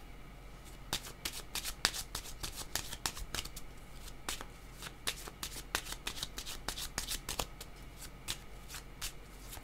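A deck of cards shuffled by hand: a quick, irregular run of light card snaps and flicks, several a second, starting about a second in.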